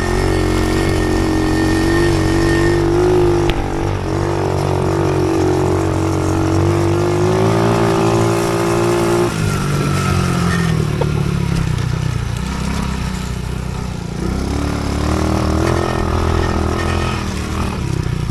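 Small off-road engine running steadily under throttle, its pitch climbing a little about eight seconds in, then dropping sharply about nine seconds in and wavering lower and unevenly afterwards.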